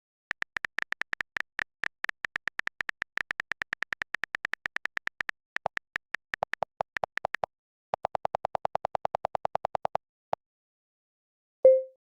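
Siri's synthesized voice stuttering out a rapid stream of short, clipped electronic blips, about eight a second, in a machine-gun-like rattle. The blips drop to a lower pitch about halfway through, pause briefly, run on, then stop, and one louder blip comes near the end.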